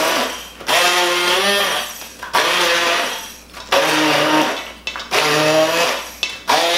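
Handheld immersion blender switched on in short bursts, about five in a few seconds, chopping chunks of raw tomato and other vegetables in a stainless steel bowl. Its motor pitch dips and wavers as the blade bites into the pieces before the mixture has liquefied.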